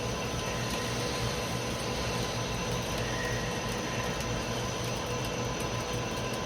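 Mori Seiki Frontier L-II CNC lathe running: a steady mechanical hum and hiss with a few faint constant whine tones, unchanging throughout.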